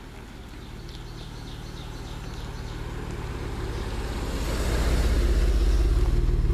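Ford Explorer Sport's twin-turbo V6 with a Borla aftermarket exhaust, driving up and passing close by: a low exhaust note that grows steadily louder until about four and a half seconds in, then stays loud as the SUV goes past.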